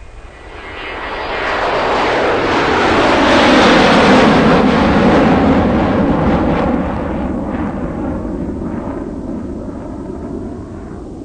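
Hitachi tracked excavator running hard while it swings, dumps and digs, its engine and hydraulics a loud, even noise. The noise swells over the first few seconds, then slowly eases off.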